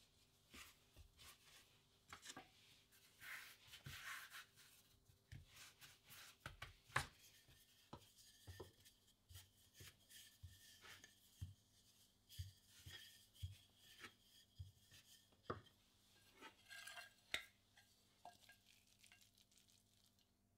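A wooden rolling pin rolling out bao dough on a floured wooden board: faint rubbing and a series of soft knocks as the pin goes back and forth and taps the board, the loudest about seven seconds in.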